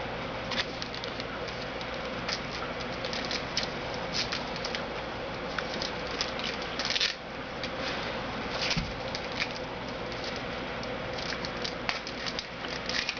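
Light crinkling, rustling and small clicks of trading-card packs and cards being handled and opened, over a steady background hiss.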